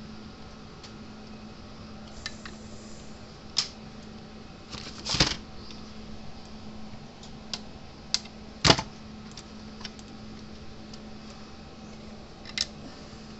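Scattered clicks and knocks of small tools and parts being handled on a workbench, irregular and a few seconds apart, the loudest about five and nine seconds in, over a steady low hum.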